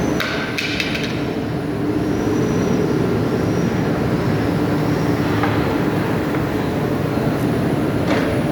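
Single-spindle CNC router with an automatic tool changer running, a steady loud machine noise with a low hum and a faint high spindle whine that rises and falls. A few sharp clicks come about half a second in and again near the end.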